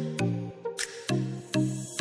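Background music with a steady beat: electronic-sounding bass notes and sharp percussion hits, about two beats a second.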